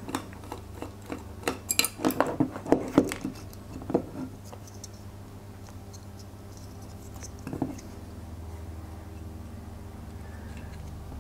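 Small clicks and taps of plastic and metal model-kit parts being handled and pressed together, as plastic carburettors and an intake are worked onto a metal engine block that won't seat. A quick run of clicks fills the first four seconds, with one more tap later, over a low steady hum.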